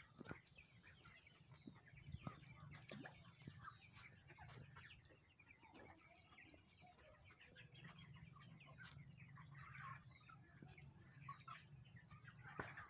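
Faint chickens clucking, with scattered short bird chirps throughout.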